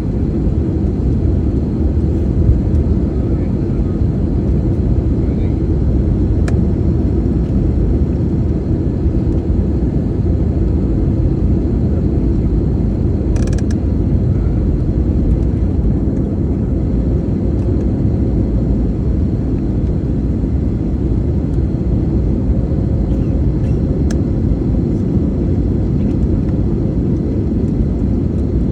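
Airliner cabin noise during descent: a steady, even rumble of the engines and airflow heard from inside the passenger cabin.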